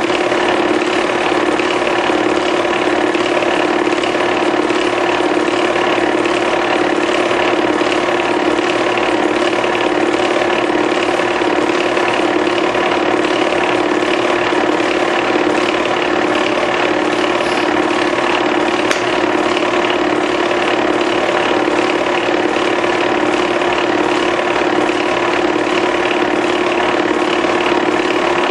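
Movie film projector running: a steady mechanical whir with a fast, even ticking from its film-advance mechanism.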